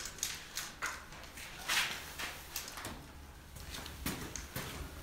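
A caulking gun being worked along a wall joint, squeezing out acoustic sealant, with a few brief clicks and scrapes.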